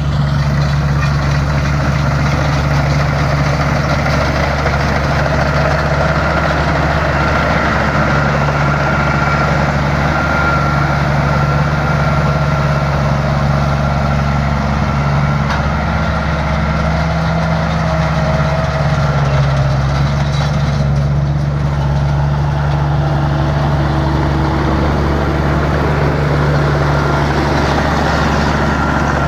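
Combine harvester's diesel engine running steadily and loudly, with no change in speed.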